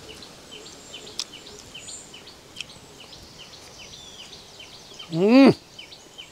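A bird chirps over and over in short, quick, falling notes. About five seconds in, a man chewing lets out a loud, drawn-out hum of relish, rising then falling in pitch.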